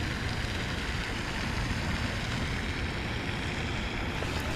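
Steady rushing noise with a low, fluttering rumble: wind blowing across the microphone outdoors, with no distinct events.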